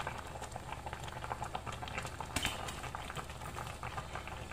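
Noodle soup broth bubbling steadily in a pan on the stove, a fine crackle of small bursting bubbles, with one sharper click about halfway through.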